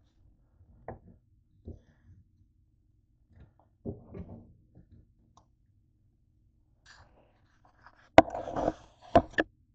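Kitchen handling noises: a few light taps and knocks, then a louder clatter of a pan knocking and scraping on the stovetop about eight seconds in, with two more sharp knocks just after.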